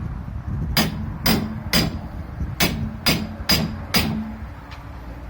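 Hammer blows on the steel stator of an electric motor, being knocked apart to free its copper windings. Seven sharp strikes, each with a brief metallic ring: three, a short pause, then four.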